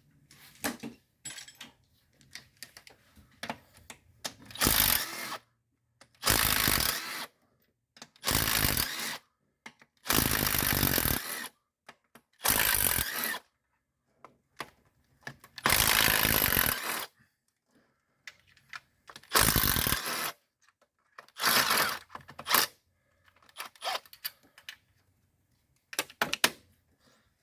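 3/8-inch drive cordless impact wrench running in about eight short bursts, each up to a second and a half long, as it spins out intake manifold bolts, with small clicks of socket and tool handling in the pauses.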